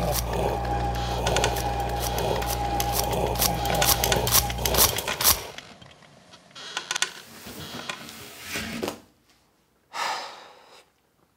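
Electric fan running with a steady motor hum and a rapid clattering rattle, cut off abruptly about five seconds in. After that come a few scattered, quieter creaks and knocks.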